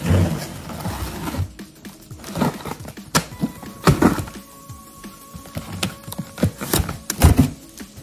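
Cardboard shipping box being opened: a knife slitting the packing tape along the top, then the box flap handled, with scraping, rustling and irregular knocks and thumps.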